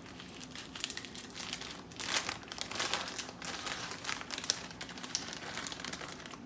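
Plastic packaging crinkling and rustling in irregular bursts as more shredded cheese is sprinkled onto a pizza.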